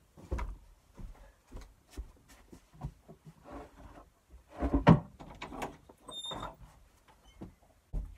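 Someone walking out of a small room: footsteps and scattered knocks, then a wooden door opened, with a loud bump about five seconds in.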